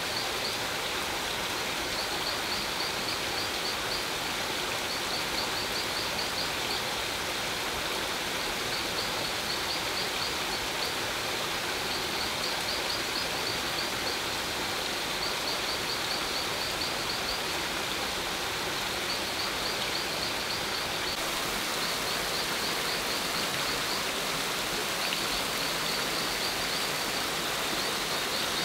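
Steady rush of flowing water from a jungle stream and water spraying down from bamboo tubes as artificial rain. A high chirping repeats in short trills about every two seconds.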